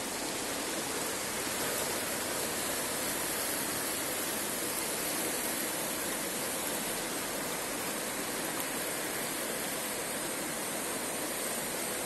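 A river rushing over shallow rapids: a steady, even hiss of flowing water.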